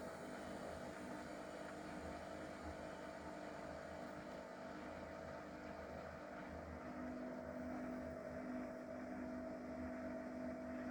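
Hotpoint Ariston AQ83D washing machine running its 800 rpm spin: a steady hum with a held whine, cutting off abruptly at the very end.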